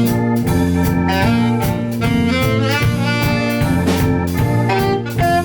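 Jazz band playing: saxophone melody over bass, keyboard chords and drums keeping a regular beat.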